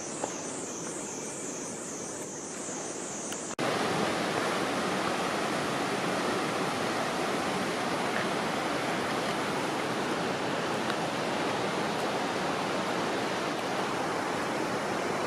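A high, pulsing buzz, about two pulses a second, cuts off abruptly a few seconds in. A loud, steady rush of fast-flowing water, like a river or waterfall, takes its place.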